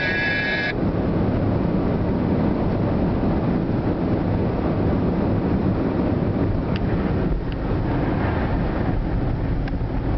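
Steady tyre and wind noise inside a car's cabin at autobahn speed, a low even drone.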